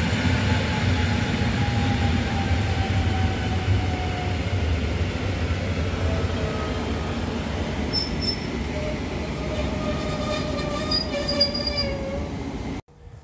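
EN57AL electric multiple unit pulling into a station and slowing. Loud running noise with a whine that falls in pitch as it slows, then high brake and wheel squeals over the last few seconds before the sound cuts off abruptly.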